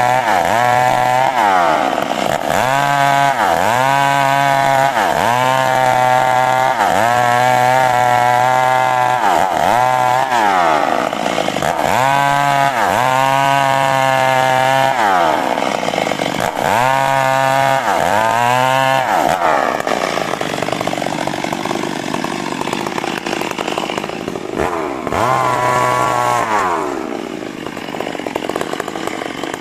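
Two-stroke chainsaw cutting coconut-palm wood, its engine revving up and dropping back every second or two. After about twenty seconds it settles to a lower, rougher running, with one more burst of throttle near the end.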